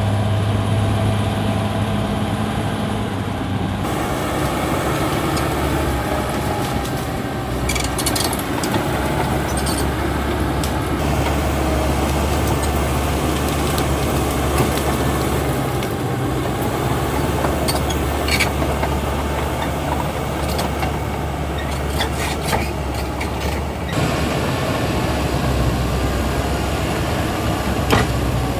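Caterpillar D6R XL bulldozer's diesel engine running steadily under load; its note changes about four seconds in, and a few short sharp knocks sound over it.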